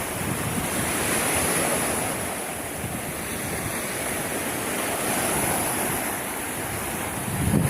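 Sea waves washing onto the shore, the surf swelling and easing every few seconds, with some wind buffeting the microphone.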